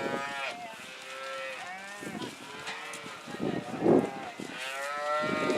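A herd of cattle mooing and bawling, several animals calling over one another in long, wavering calls, the loudest a little before the four-second mark.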